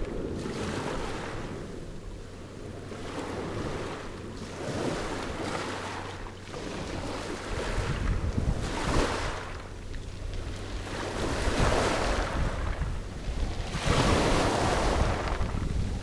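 Small waves breaking and washing up over a pebble beach, coming in surges that swell loudest about nine seconds in and again near the end, with wind buffeting the microphone.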